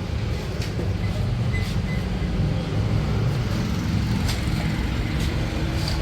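Steady low motor rumble, with a few faint light clicks of parts or tools being handled.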